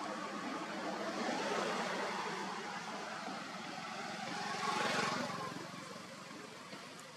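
A motor vehicle passing, its sound swelling to a peak about five seconds in and then fading over steady background noise.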